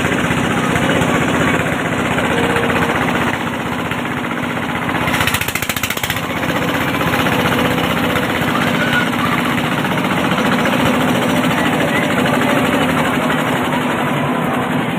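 A small engine running steadily with a rapid, even pulse.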